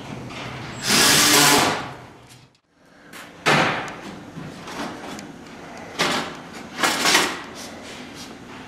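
A cordless drill drives a screw into the aluminium deck for about a second near the start. Later come several sudden knocks and scrapes as the aluminium side panel is handled against the deck frame.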